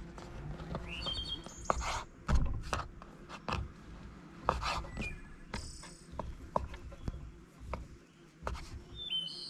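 Irregular knocks and scrapes, with birds chirping a few times.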